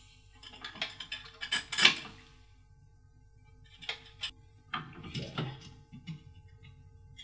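Metal washers and hex nuts clinking against a threaded U-bolt as they are fitted on by hand: scattered small metallic clicks and taps in two short clusters, one early and one about four seconds in.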